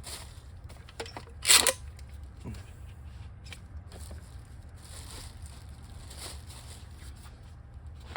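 Handling noises as a tube of all-purpose silicone is readied, with one short, louder rustling scrape about one and a half seconds in and faint rustles and clicks after, over a steady low hum.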